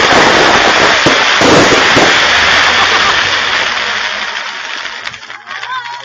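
Fireworks crackling in a dense, loud, continuous barrage that fades away over the last two seconds.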